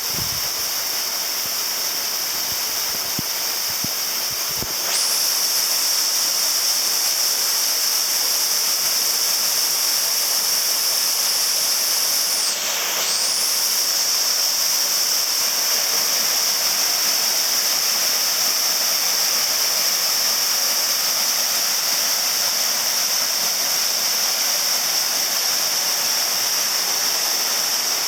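Waterfall rushing, a steady wash of water noise that grows louder about five seconds in.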